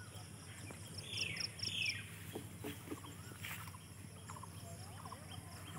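Birds calling: a rapid, evenly spaced series of high chirps that recurs, and two louder downward-swooping calls between one and two seconds in.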